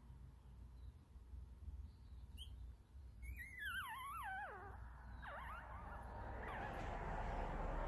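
Newborn chihuahua–pomeranian mix puppy whimpering in its sleep: a wavering cry that falls in pitch about three seconds in, followed by two shorter falling squeaks.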